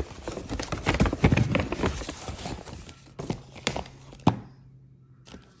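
Paper gift bag rustling and crinkling as a hand rummages inside and pulls out a boxed watch, with a few light knocks of the box against the bag; it goes quiet near the end.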